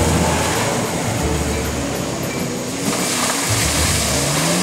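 A 2014 Toyota 4Runner's V6 engine running as the SUV drives off along a muddy track, mixed with background music.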